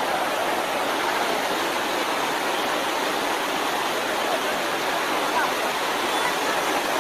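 Fast-flowing floodwater rushing across a river crossing: a steady, even rush of water with no let-up, and faint voices over it now and then.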